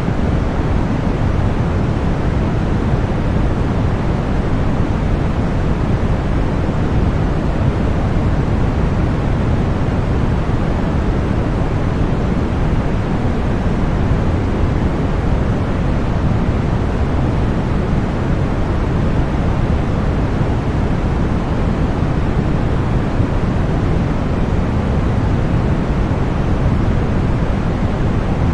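Continuous synthetic deep white noise: a steady, unbroken rush with most of its weight in the low end and only a soft hiss above it.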